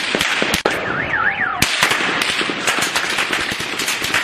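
A dense, rapid string of sharp cracks and pops from street clashes. About a second in, a brief warbling tone rises and falls three times over them.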